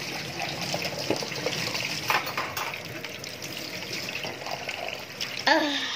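Water running from a kitchen sink tap into a cup, with a few light knocks. A short wavering pitched sound near the end.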